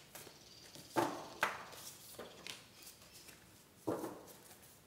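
A deck of large oracle cards being shuffled by hand: a few short card slaps and riffles, the loudest about a second in and near the end.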